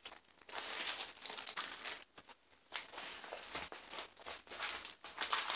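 Clear plastic wrapping crinkling and rustling as a rolled diamond-painting canvas is handled, unwrapped and unrolled by hand. It comes in uneven bursts, with a short pause a little after two seconds in.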